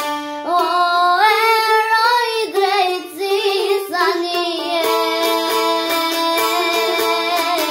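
A girl singing with vibrato, accompanied by a çifteli, the Albanian two-string plucked lute. About halfway through, the çifteli's fast repeated plucking of held notes comes to the fore.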